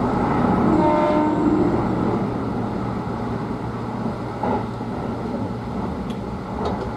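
Running noise of a Kintetsu Hinotori electric express heard from inside its front car while it climbs through a tunnel. It is a steady rumble and hum, with a brief pitched tone about a second in.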